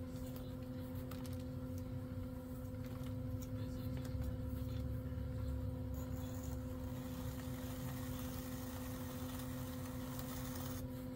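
Electric pottery wheel motor humming steadily as the wheel spins. Under it, a low rumble that swells around the middle as a metal trimming tool cuts clay from the pot's base.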